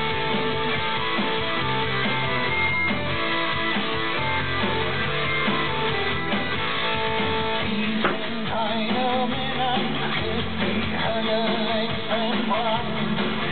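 Background rock music with guitar, steady in level; a singing voice comes in about two-thirds of the way through.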